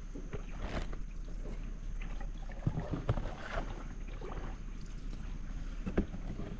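Canoe paddle strokes in river water, with irregular splashes and a sharp knock near the end.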